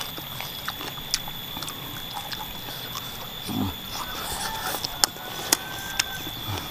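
Close-up eating sounds of someone chewing spicy chicken feet, with scattered sharp clicks and smacks. A short falling grunt comes about three and a half seconds in.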